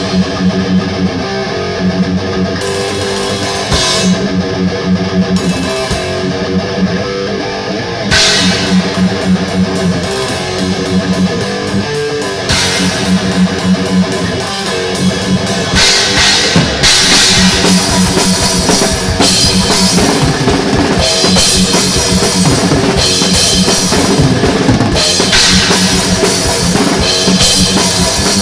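Thrash metal played by a band: distorted electric guitars riffing over fast drum kit with bass drum, with cymbals coming in heavily about halfway through.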